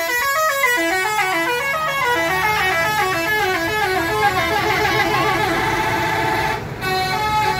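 Bus 'telolet' horn playing a quick melody of short stepped notes, several a second, breaking off briefly near the end and starting again.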